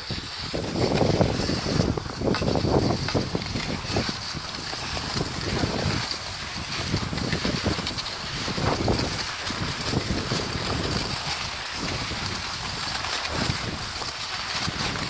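Wind buffeting the microphone as it moves along a snowy trail, a steady rushing with louder low surges every second or two.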